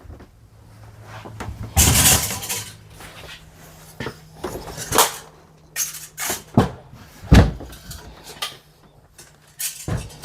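Boxes being handled and shifted: a rustling scrape about two seconds in, then a series of separate knocks and thuds, with a faint steady low hum underneath.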